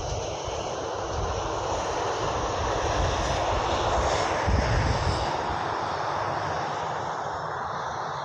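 Boeing 737 jet engines running as the airliner taxis past, a steady rushing engine noise with a faint high whine that swells a little around the middle and then eases off.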